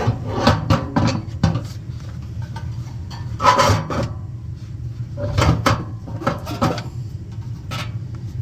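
Furnace parts and tools being handled during a blower motor replacement: a run of short knocks and rattles, bunched in two clusters, over a steady low hum.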